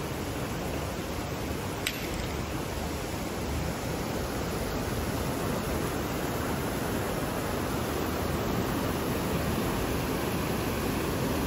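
Steady rushing of water in a rocky gorge stream, an even hiss that grows slightly louder over the last few seconds, with one short click about two seconds in.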